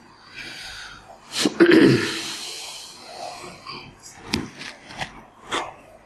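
A man's nose and breath: a soft sniff, then a loud, sharp burst of breath through the nose about one and a half seconds in, then several short clicks near the end.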